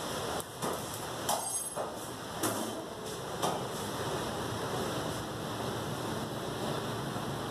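A few sharp knocks and clicks of a butcher's knife against a wooden chopping block and a skinned mutton carcass in the first few seconds, one with a brief metallic ring, over a steady hiss of background noise.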